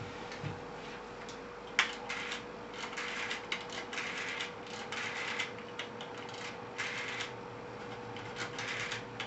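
Rotary dial of an Ericofon one-piece telephone being dialled: several short runs of quick ticking clicks as each digit is turned and the dial spins back.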